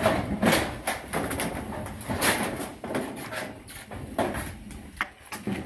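Corrugated zinc roofing sheet wobbling and rattling as it is lifted and handled, with several louder metallic scrapes and clatters about a second apart.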